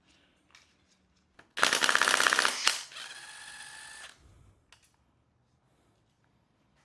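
A power impact tool working a bolt on an engine: about a second of loud, rapid hammering, then a steady motor whine for just over a second, then it stops. A few light tool clicks around it.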